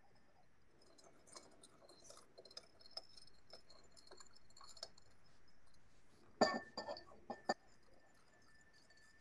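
Metal spoon clinking against the inside of a glass jar, stirring salt into water and vinegar until it dissolves to make a saltwater electrolyte. Light, quick clinks give way to a few louder knocks about six and a half seconds in.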